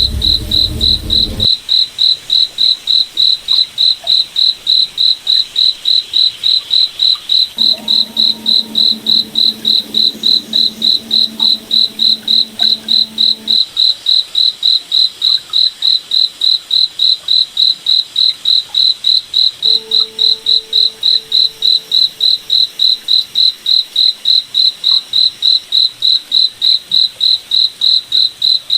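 A cricket chirping steadily, a high, even chirp about three times a second. A faint low drone comes and goes behind it twice.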